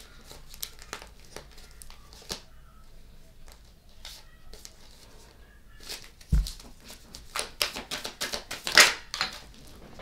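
Handling noise: short rustles and light clicks of things being moved about, sparse at first and much busier in the second half, with the loudest rustle near the end.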